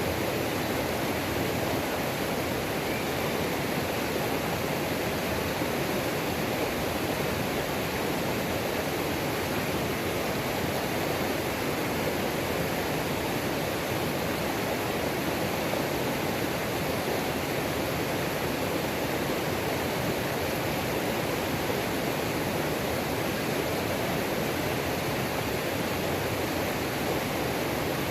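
Mountain creek water pouring over a waterfall and rushing over rocks, a steady, unbroken roar.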